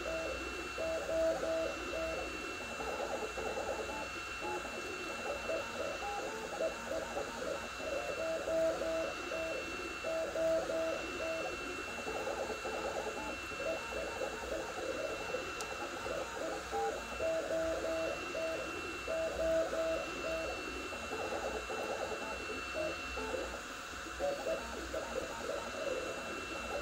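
Sapphire Plus 3D printer printing at 130 mm/s, its stepper motors whirring in short notes that change pitch every fraction of a second as the print head darts about. Underneath runs a steady hiss with a thin high whine.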